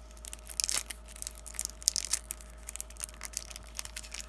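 Cellophane shrink wrap on a sealed trading-card starter deck being picked at and torn open with the fingers: an irregular run of crinkling and crackling with quick sharp clicks.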